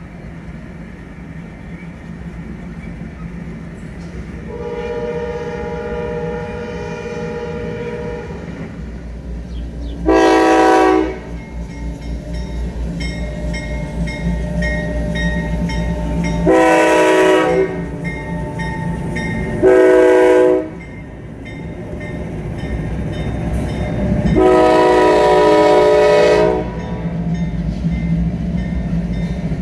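Diesel freight locomotive's air horn, a chord of several notes. One fainter long blast comes first, then four loud blasts, the last the longest. Under the horn the low rumble of the locomotive engines and the train builds as it approaches.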